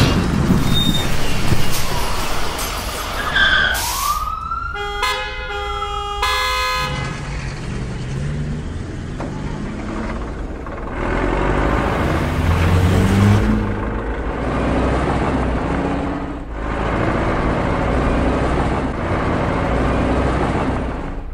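Dubbed vehicle sound effects. A few seconds in, a rising-and-falling siren-like wail runs into a string of horn-like tones. After that, a vehicle engine runs steadily with its pitch shifting up and down.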